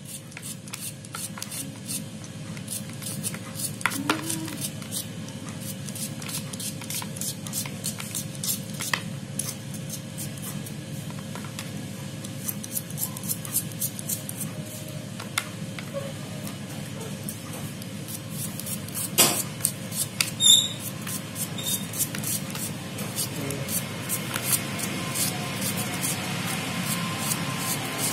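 Knife slicing a small red onion held in the hand, the blade making a rapid, irregular run of crisp cutting clicks as slices drop onto a plate. There are two louder knocks about two-thirds of the way through.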